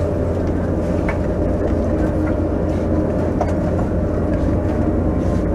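Alstom Citadis 302 light-rail tram running along the street, heard from on board: a steady rumble with a steady hum and a couple of faint clicks.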